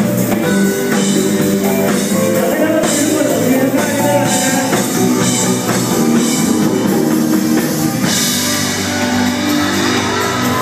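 Live band playing loudly, with drum kit and keyboards.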